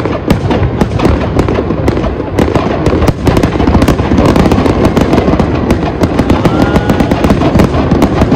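Dense, continuous barrage of aerial fireworks, with many bangs and crackles overlapping without a break, typical of the finale of a fireworks show. A short whistle is heard about two-thirds of the way through.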